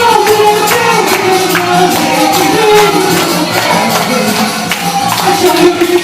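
Lively Romani-style song played loud, with a fast tambourine beat under a melody line.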